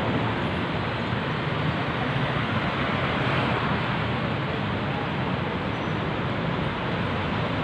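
Steady road traffic noise from cars, motorcycles and trucks passing on a busy multi-lane avenue.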